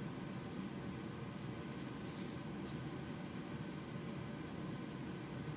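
Pencil scratching on paper while shading, with one louder stroke about two seconds in, over a steady low background hum.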